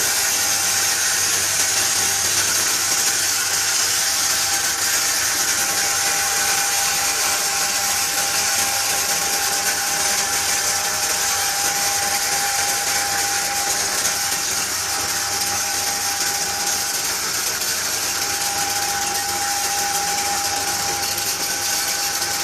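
Feed pulverizer (grinder) running at full speed, sucking in feed ingredients and grinding them to powder: a steady high whine over a loud hiss.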